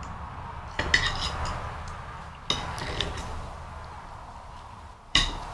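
Kitchenware being handled and packed: a few sharp clinks of dishes, cutlery and glass, about a second in, twice around the middle, and once more near the end.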